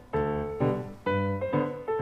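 Light background music on a keyboard, with a new note or chord struck about twice a second.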